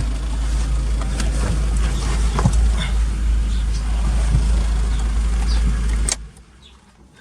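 Volkswagen Jetta engine idling steadily after repair of a multiple-cylinder random misfire (code P0300). It is switched off with a click about six seconds in.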